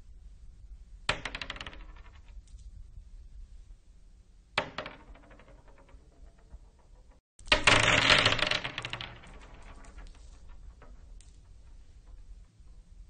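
Marbles dropping onto a wooden floor, bouncing and clattering. A short drop comes about a second in and another around four and a half seconds. The loudest is a longer burst of many rapid clicks from about seven and a half seconds, rattling on for about two seconds before it dies away.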